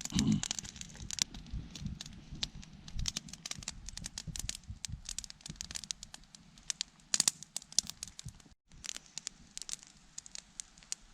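Small wood campfire crackling, with irregular sharp pops and snaps throughout; the sound drops out briefly about eight and a half seconds in.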